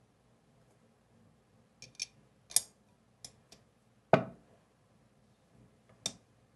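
Hard objects being handled and set down: several light clicks and taps, and one heavier knock with a short ring about four seconds in.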